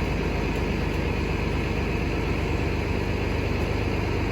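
Bus engine idling steadily with the bus standing still, a low even hum with no changes.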